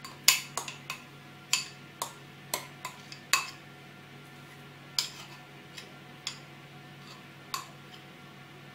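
A metal spoon tapping and scraping against a tub as crumbled feta is scooped out and knocked onto a baking dish: sharp, irregular taps, closely spaced in the first few seconds and sparser after.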